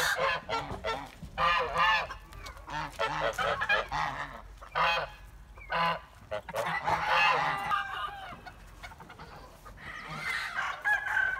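A group of white domestic geese honking, with many short calls coming one after another.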